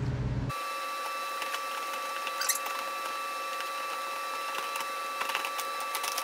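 Light plastic clicks and taps as an ATV's plastic body panels and push pins are worked loose by hand. A steady high hum runs under them.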